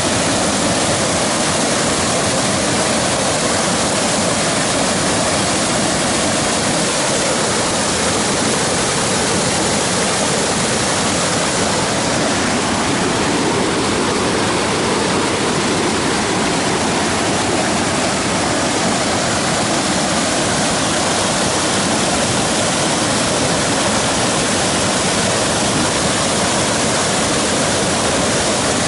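Small waterfall pouring over rock ledges into a pool in a rocky river, a steady, even rush of water.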